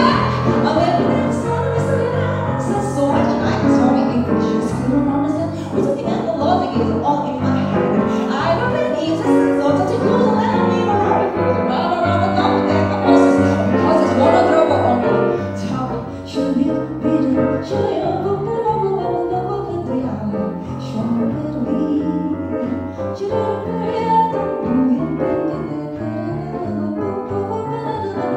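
Female jazz vocalist singing an up-tempo vocalese line into a microphone, with piano accompaniment.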